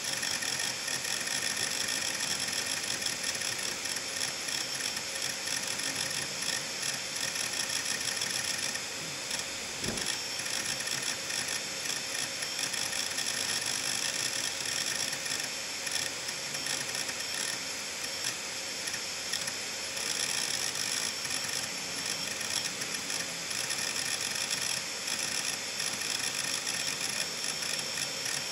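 Seagate Medalist 8630 (ST38630A) hard drive with its cover off, platters spinning with a steady high whine while the head actuator arm seeks rapidly back and forth in a fast, continuous clatter of clicks: the drive is thrashing under several large files being written to many parts of the disk at once. A brief low thump about ten seconds in.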